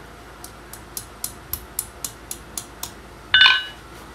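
Hand hammer tapping nail stock on a steel anvil, about ten light blows at roughly four a second while forging a nail. Near the end comes one loud clang of steel on the anvil face that rings on briefly.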